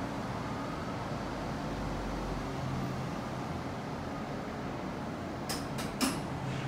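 Bukit Panjang LRT rubber-tyred light rail vehicle running with a steady hum, and a few sharp clacks from about five and a half seconds in.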